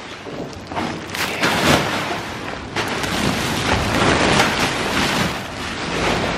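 Large plastic mail sacks rustling and crinkling as they are handled and swung into a wire-mesh cart, with several louder bursts of rustling and thuds. Camera handling noise rumbles underneath.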